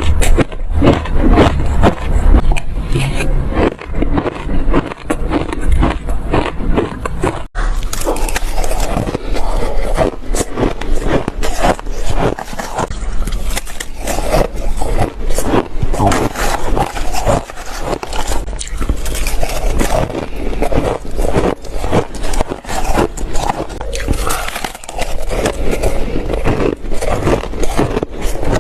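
Close-miked biting and chewing of shaved ice: dense, loud crunching and crackling with many sharp cracks, broken by a brief cut about seven and a half seconds in.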